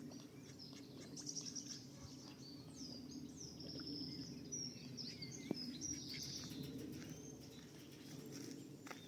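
Small birds chirping and singing, many short high notes and trills overlapping, over a steady low background rumble.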